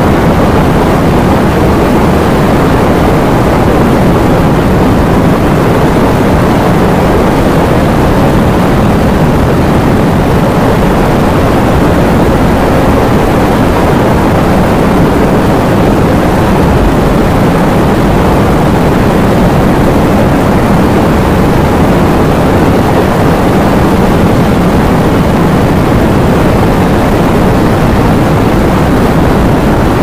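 Heavy rain falling in wind: a steady, dense rush of downpour with a deep rumble underneath.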